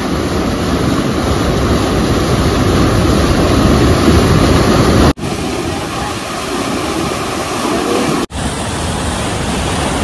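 Loud, steady rush of white water pouring over rock ledges in a small waterfall's rapids, broken by two sudden short cuts, about halfway and near the end.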